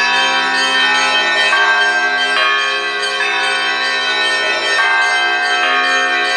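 Russian Orthodox monastery bells rung from the belfry: several bells of different pitch struck together in a repeating pattern, a new strike coming roughly every second while the earlier tones ring on.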